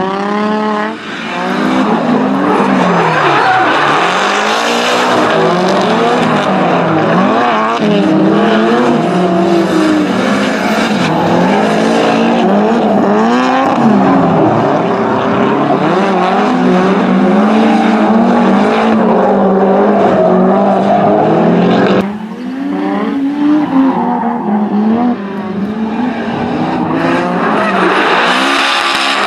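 Drift cars' engines revving hard, the pitch rising and falling constantly with the throttle, over continuous tyre screech as the cars slide sideways through corners. The sound dips sharply for a moment about three-quarters of the way through, then picks up again.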